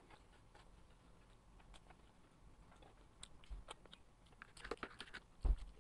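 A person chewing food with small, faint mouth clicks, sparse at first and busier in the second half, with a couple of soft low bumps.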